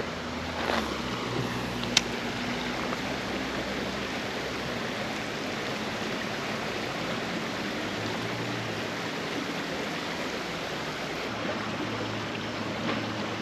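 Creek water running steadily, with a single sharp click about two seconds in.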